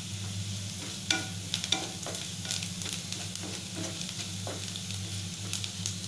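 A wooden spatula stirs browned chopped onions and green chillies frying in oil in a non-stick pan, scraping and clicking against the pan over a steady sizzle. The sharpest scrapes come a little after a second in, and a low steady hum sits underneath.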